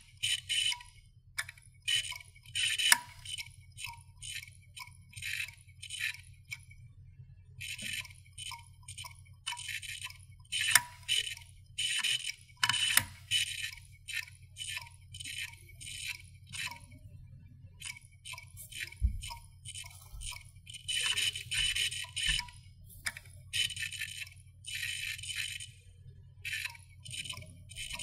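Hard disk drive clicking, with irregular clusters of quick clicks and rattling separated by short pauses, over a steady low hum.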